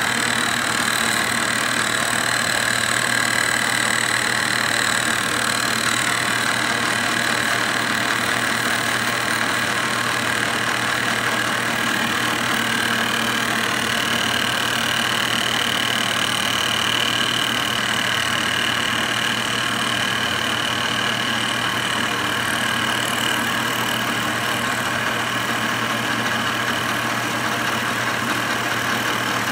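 Milling machine running and taking a facing cut across the warped base flange of a Tillotson carburetor to bring it flat: a steady motor hum with a high cutting whine, a different whine coming in about halfway through.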